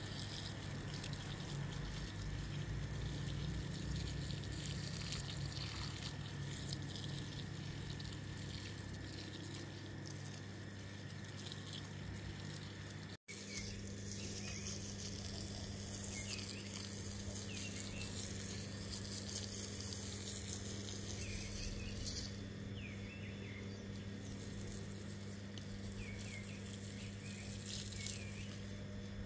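Water running from a garden hose and splashing, first into a plastic basin of soaking blankets and then over a soapy carpet being washed, with a steady low hum underneath.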